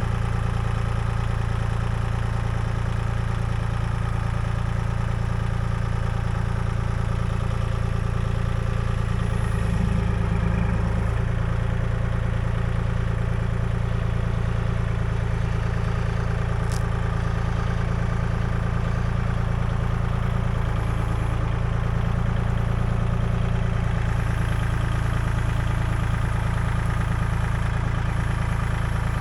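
An engine running steadily at a constant speed, a low, even drone, with a brief change in its sound about ten seconds in.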